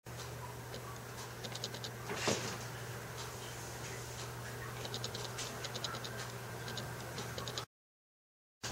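Cat's claws ticking on a hardwood floor in quick runs of clicks as it scampers after a laser dot, over a steady low electrical hum. One louder knock comes a little over two seconds in, and the sound cuts out briefly near the end.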